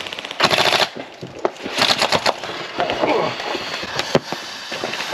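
Airsoft guns firing on full auto: two short bursts of rapid, evenly spaced shots, about half a second in and again about two seconds in, with scattered single shots between and after.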